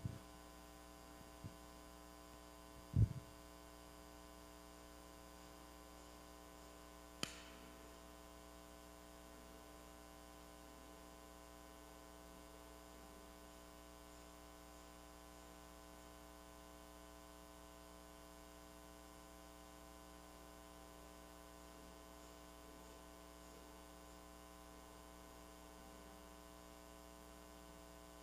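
Low, steady electrical mains hum. There is a faint tick about a second and a half in, a low thump about three seconds in, and a short sharp click about seven seconds in.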